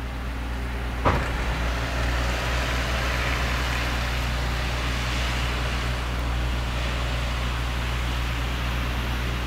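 Steady low mechanical hum with a constant hiss over it, and a single sharp knock about a second in.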